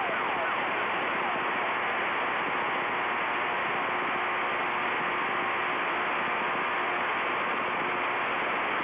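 Steady radio static hiss from the aircraft receiver tuned to a practice ELT. The ELT's falling, siren-like sweeps fade out into the static within the first second.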